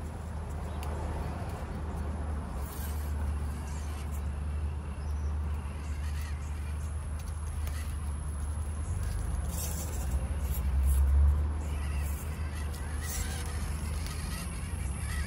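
Small 1/24-scale RC crawler driving over rough ground: scattered clicks and crunches of its heavy beadlock wheels and tyres, over a steady low rumble.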